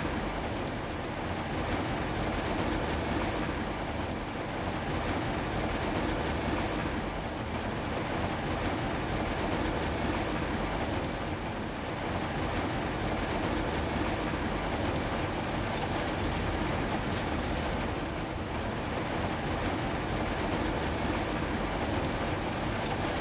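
Steady rain, an even, unbroken hiss of falling rain with a low rumble under it.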